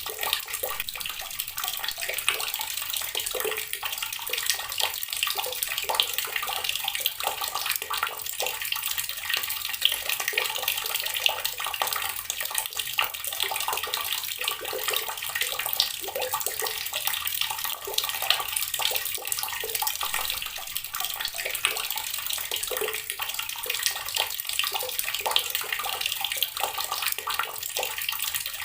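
Water running steadily from a tap and splashing into the water below, a continuous spattering rush without pause.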